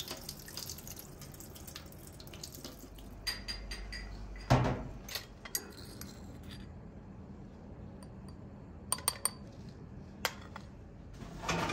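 Water running in a steel sink as fresh broad beans are rinsed in a ceramic bowl, then scattered knocks and clinks of a small brass mortar and a tea glass. The loudest is a sharp knock about four and a half seconds in, and three quick clinks come near nine seconds.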